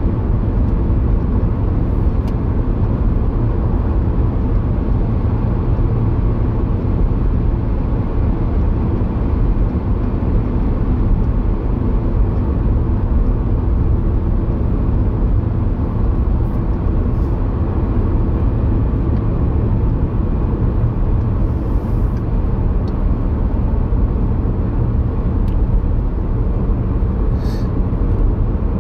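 Steady road noise of a car driving at speed, heard from inside the cabin: engine and tyres as one continuous low rumble, with a few faint ticks.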